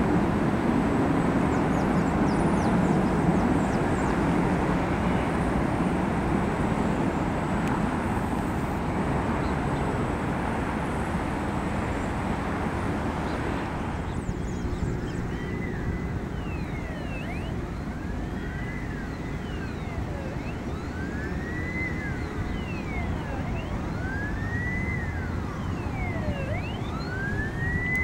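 Airbus A380 jet engines rumbling, loudest at first and fading away over the first half. From about halfway an emergency-vehicle siren wails, rising and falling over and over, about once every three seconds.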